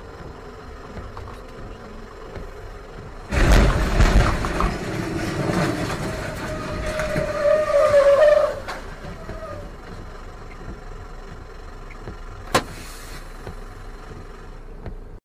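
A tractor-trailer crashing off the road into trees and brush: a sudden loud crash about three seconds in, then about five seconds of crunching and scraping with a high squeal near the end, heard over a truck's steady engine and road noise from inside the cab. One sharp click about twelve seconds in.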